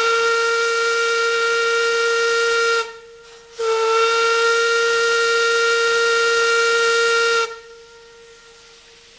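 Paddle steamer's steam whistle blowing one steady note in two long blasts, with a short break about three seconds in. It cuts off sharply about seven and a half seconds in, leaving a faint hiss.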